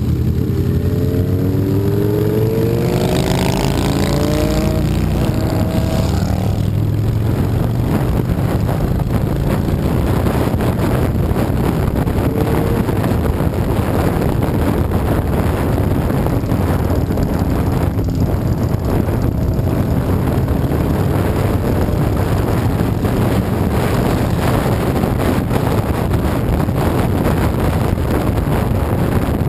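Motorcycle engine riding at highway speed, its pitch rising as it accelerates in the first few seconds, then holding a steady cruise with heavy wind noise on the microphone.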